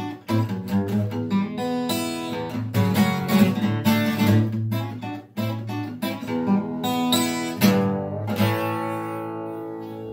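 Acoustic guitar played solo with a pick: quick single-note runs mixed with chords, ending on a last chord about eight seconds in that is left to ring out and fade.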